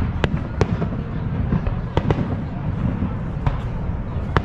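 Fireworks going off: about six sharp cracks and bangs at uneven intervals, the loudest near the end, over a steady low rumble.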